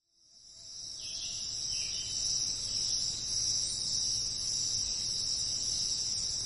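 Steady, high-pitched chorus of insects that fades in over the first second or two.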